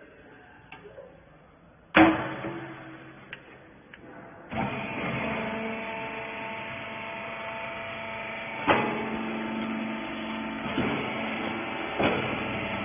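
Clothes baling machine: a loud bang like a door or gate slamming shut, then about two seconds later its motor starts and runs with a steady hum, broken by two sharper knocks.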